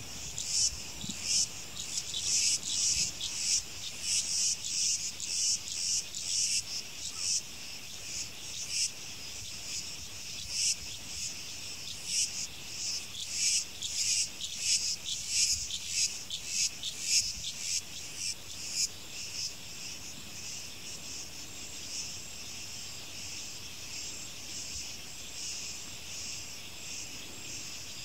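Chorus of insects calling high-pitched, pulsing a few times a second for most of the time, then settling into a steadier buzz near the end.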